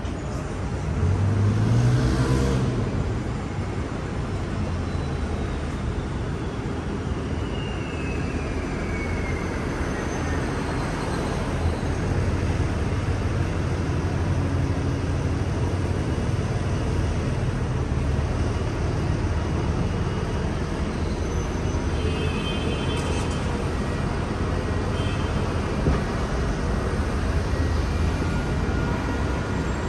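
Downtown street traffic: a steady rumble of passing cars, with one vehicle passing close about two seconds in, its engine pitch rising. A faint falling whine follows around ten seconds in.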